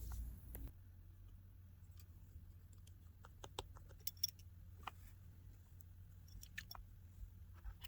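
Faint, scattered small clicks and ticks of tiny phone screws and a precision screwdriver being handled and set into the iPhone 8's metal shield plate.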